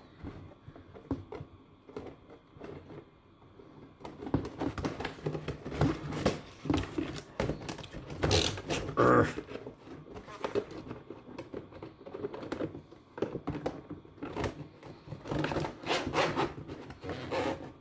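Thin plastic panels of a flat-pack folding shoe rack being handled and pushed together: scattered clicks, taps and scrapes of plastic, sparse for the first few seconds and busier after.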